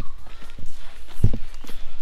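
Footsteps of a hiker on a dirt trail strewn with dry leaves: a few scattered crunches and thuds, the heaviest a little past halfway.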